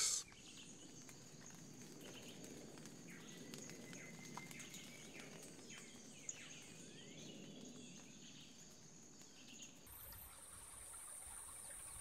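Faint tropical forest ambience: a steady high insect drone with a few faint bird chirps. About ten seconds in it changes abruptly to a different, higher-pitched insect drone.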